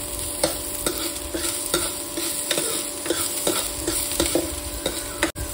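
Sliced onions frying in mustard oil in a non-stick pan, sizzling steadily while a steel spoon stirs them, scraping and tapping against the pan about twice a second.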